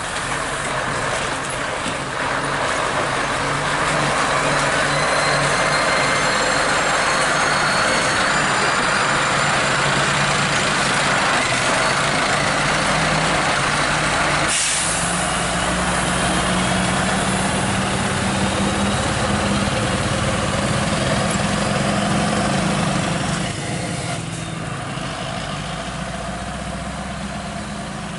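Scania R580 tractor unit's V8 diesel engine running as the truck drives past over a rough, muddy road. There is a brief air-brake hiss about halfway through, and the sound gets quieter near the end as the truck pulls away.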